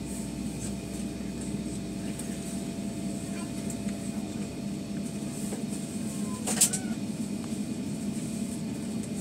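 Cabin noise of a Boeing 757-232 on the ground: its engines run at taxi power as a steady low hum with a faint high whine. A single sharp click cuts in about six and a half seconds in.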